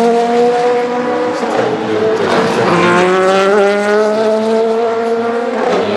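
A GT3 race car under hard acceleration, its engine note climbing steadily in pitch. It shifts up about two seconds in, then climbs again through the next gear. The car runs with the mandatory 100 dB-limited muffler.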